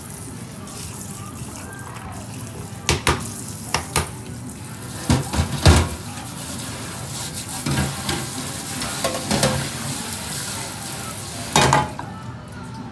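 Water from a sink's spray hose hissing as it rinses loose scales off a freshly scaled pollock and a fish scaler, with a few sharp knocks of the scaler against the stainless steel sink, loudest about five to six seconds in and once more near the end. The spray cuts off near the end.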